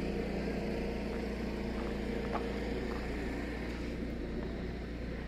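A steady low mechanical hum, even in level, with faint distant sounds like voices mixed in.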